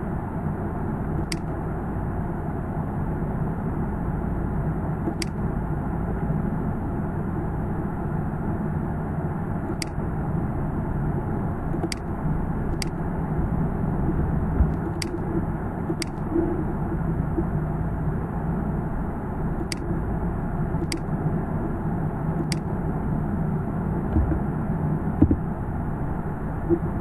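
Steady low background rumble, with about ten sharp computer mouse clicks at irregular intervals as the mouse is used to draw.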